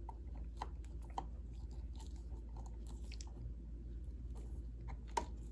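Faint irregular clicks and creaks of a screwdriver driving the second screw that holds a smoke alarm's mounting plate to the ceiling box, with one sharper click about five seconds in, over a low steady hum.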